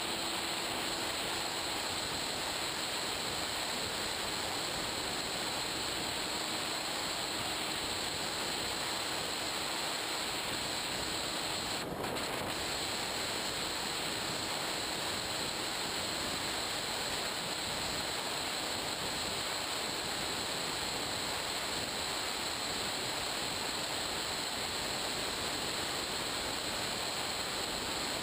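Steady rush of wind over the onboard GoPro Hero2 on a small RC plane in flight, with a faint constant high whine on top and a brief break about twelve seconds in.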